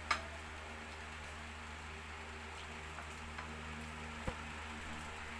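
Quiet mukbang eating sounds: shrimp being peeled by hand over plates, with a sharp click just after the start and a light knock about four seconds in, over a steady hiss and low hum.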